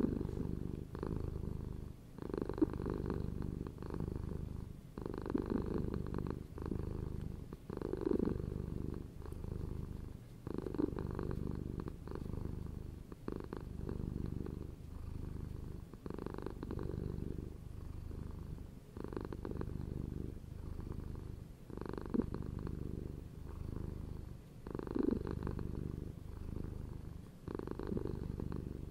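Domestic cat purring steadily and close, the low rumble swelling and easing about every two to three seconds.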